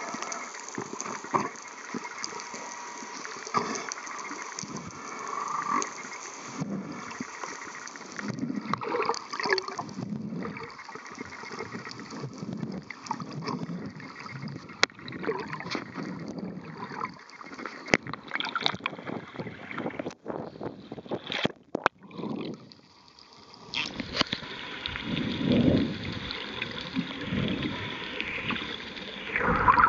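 Underwater water noise, bubbling and gurgling around the camera, with low calls of humpback whales coming through at times.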